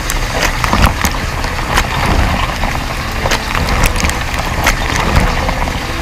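Water spraying from a dishwasher's rotating spray arm and splashing against the racks and dishes, a steady rushing wash with a low rumble and irregular sharp splashes.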